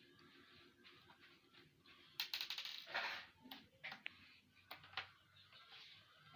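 Small hard clicks and rattles of a laptop's plastic casing and screws being worked on during disassembly, with a dense burst of rapid clicking about two seconds in and a couple of sharp single clicks near the end.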